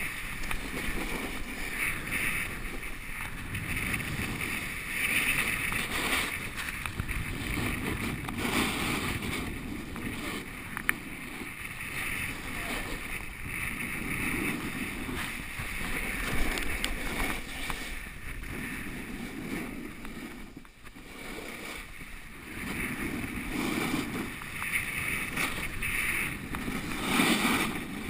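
Skis scraping and hissing over groomed snow through a series of turns, the rush swelling and easing every few seconds, with wind buffeting the microphone. A single sharp click about eleven seconds in.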